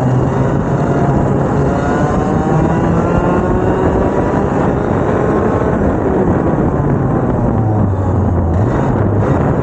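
Two-stroke racing kart engines running together. Several engine notes at different pitches rise and fall over one another.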